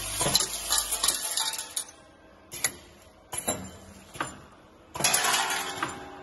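Three-bowl packing machine running: small metal parts clatter and jangle down the feed chute into the film bag in two bursts, the first at the start and the second about five seconds in, with single sharp mechanical clacks from the machine in between.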